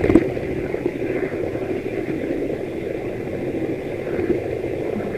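Steady rumble of an H0 model train running along the track, heard from right on the moving train: motor and wheels on the rails, with a short click or two at the start.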